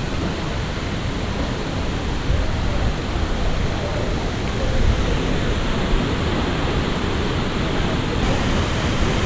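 Steady rush of falling water from Nachi Falls, a tall waterfall, mixed with heavy rain.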